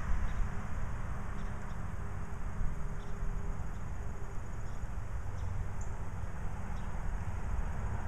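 Steady low rumble of distant road traffic mixed with wind, with a few faint, short high ticks scattered through it.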